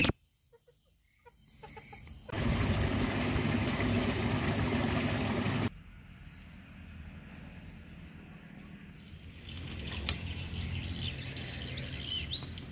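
Rural outdoor ambience: birds chirping and fowl calling over a steady high-pitched whine, with a louder stretch of rushing noise from about two to six seconds in.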